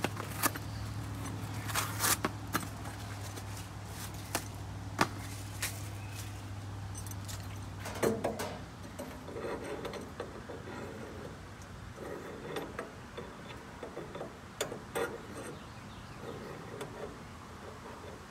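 Metal grill parts clinking and knocking in scattered sharp clicks, as burner tubes and brackets are handled and fitted inside a steel gas-grill firebox.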